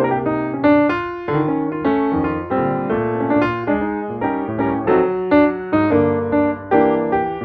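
Background piano music, single notes and chords struck at an even, unhurried pace.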